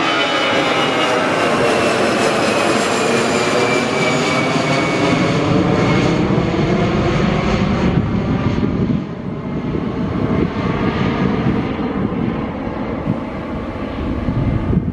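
Jet engines of a Batik Air Airbus A320-family airliner climbing out after takeoff, passing overhead and moving away: a high whine over the roar falls in pitch through the first six seconds, and the sound drops off about nine seconds in, leaving a lower rumble.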